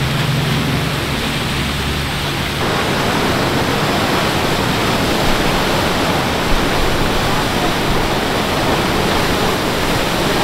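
Floodwater rushing out of a river mouth through a breached sand bar into the surf: a steady, churning rush of fast-flowing water.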